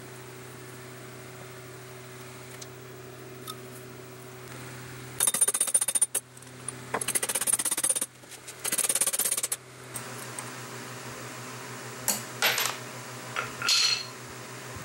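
Metal parts of a small milling machine being worked by hand: three spells of rapid metallic clicking, then a few short clanks near the end. A shop fan hums steadily underneath.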